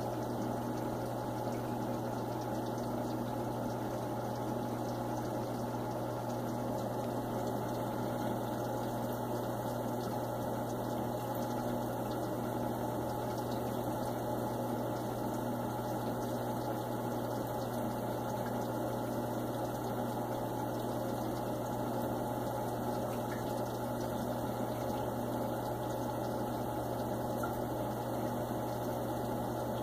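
Saltwater aquarium pump running: a steady low hum with an even wash of water noise.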